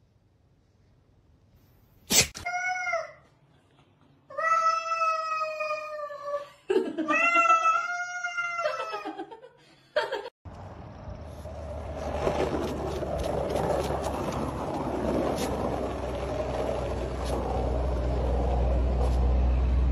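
Three drawn-out, wavering yowls from a pet animal: a short one about two seconds in, then two longer ones. About halfway through they give way to a steady rumbling noise that slowly grows louder.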